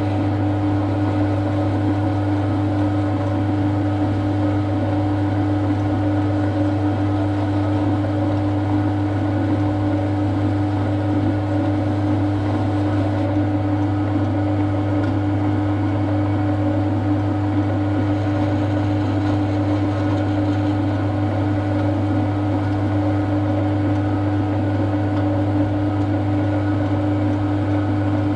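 A workshop machine running steadily, with a constant low hum and no change in pitch or load.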